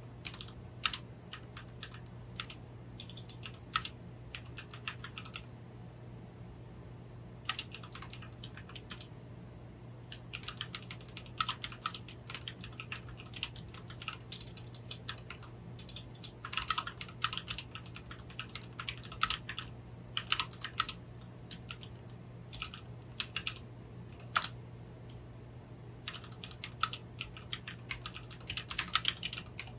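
Typing on a Rakk Lam-Ang Pro mechanical keyboard: runs of quick keystroke clicks in bursts, with short pauses between them, over a faint steady low hum.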